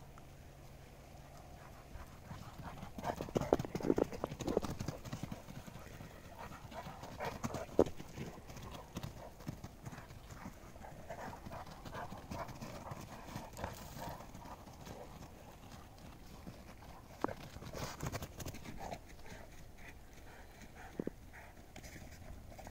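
Footfalls crunching in snow, in irregular flurries of short, soft steps.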